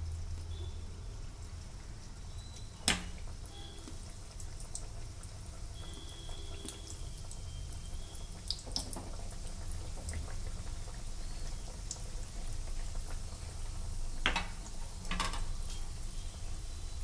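Donuts frying in hot oil in a steel bowl: a light, steady sizzle with small crackles, over a low hum. A few sharp knocks, about three seconds in and twice near the end, as more donuts go in with a spatula.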